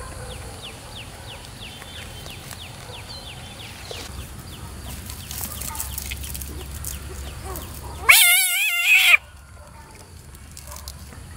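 A frog gripped in the hand gives a loud wavering distress scream, about a second long, a little past the middle. Before it, faint rustling in grass.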